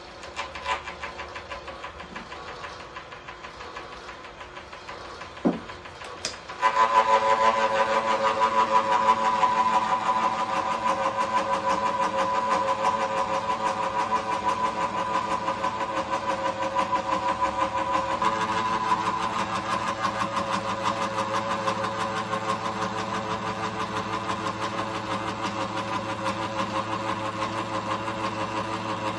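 Atlas milling machine switched on about six and a half seconds in, then running steadily with an even hum and a fast fine chatter, as when slots are being milled. A few sharp clicks and a single knock come before it starts.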